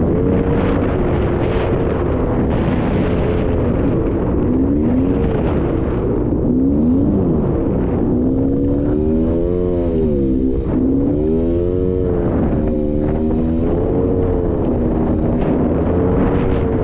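Polaris Scrambler 400 two-stroke ATV engine running under way, its revs rising and falling again and again as the throttle is worked.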